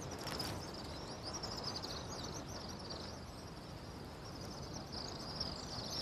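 Natural outdoor ambience: a steady, high-pitched rapid chirping over a low rushing background, with the chirping growing louder near the end.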